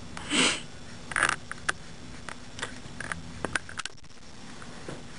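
A short sniff, then light, scattered taps and scrapes of a paintbrush working acrylic paint on the canvas, blending the droplet's light and dark areas.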